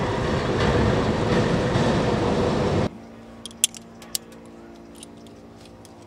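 Large corrugated-metal hangar doors sliding open with a loud, steady rolling noise that cuts off abruptly about three seconds in. Then a few sharp metallic clicks from a harness's metal buckles being fastened.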